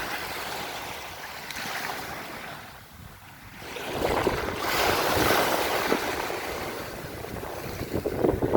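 Small sea waves washing onto the shore, one swelling in loudly about four seconds in after a brief lull, with some wind on the microphone.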